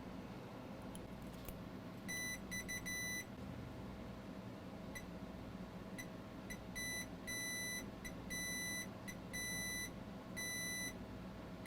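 Multimeter continuity beeper sounding a string of short and longer beeps at one steady high pitch as the probes touch capacitors on an iPad logic board. Each beep marks a short to ground.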